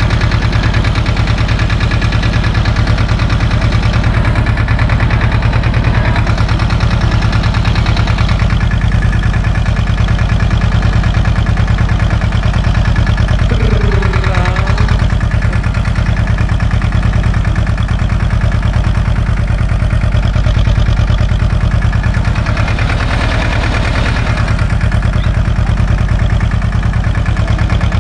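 SAME tractor's diesel engine running at a steady speed as the tractor drives along.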